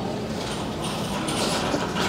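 A man straining and breathing hard through clenched teeth, with a short hiss of breath about one and a half seconds in, during a heavy rep on a seated leg-curl machine, over steady gym room noise.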